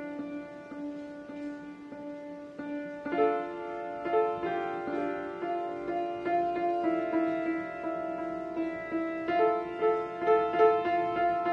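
Upright piano improvisation, recorded through a cell phone's microphone. A few notes ring on, then about three seconds in fuller chords come in and the playing grows louder.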